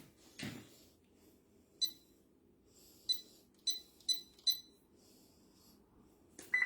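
Security alarm keypad beeping as its buttons are pressed: one short beep about two seconds in, four more in quick succession between about three and four and a half seconds, and another at the end. A breath is heard near the start.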